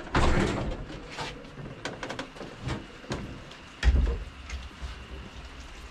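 Heavy steel train-car door being worked open, with metallic clanks and scraping and a loud heavy thump a little before four seconds in.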